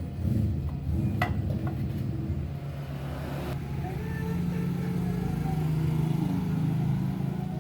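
An engine running steadily, growing a little louder in the second half, with one sharp click about a second in.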